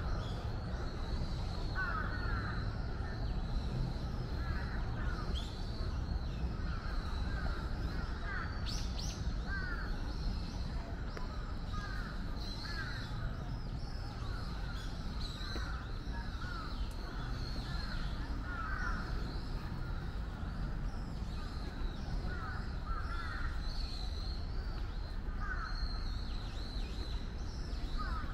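Crows cawing over and over, short calls coming every second or two, with fainter higher chirps from other birds and a steady low background rumble.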